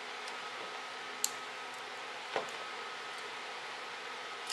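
A few small, sharp clicks and ticks as a cutter's blade scrapes hardened glue off the metal front ring of a camera lens unit, over a steady background hiss.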